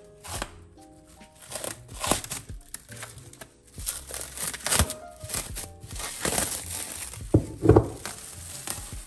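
Plastic cling film crinkling in irregular bursts as it is peeled off a glass bowl of risen dough, loudest near the end. Background music plays underneath.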